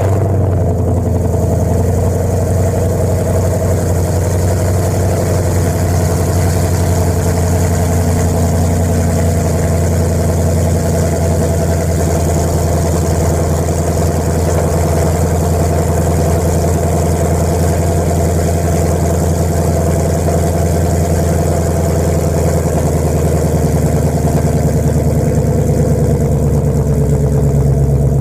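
2012 Mustang GT's 5.0 L Coyote V8 idling through a Pypes 3-inch off-road X-pipe and Magnaflow Competition cat-back exhaust, just after start-up, a deep steady burble. The idle pitch rises slightly near the end.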